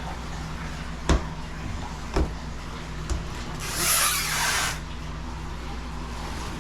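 Hands at work cleaning out a snake enclosure: two sharp knocks, then about a second of scraping rustle, over a steady low hum.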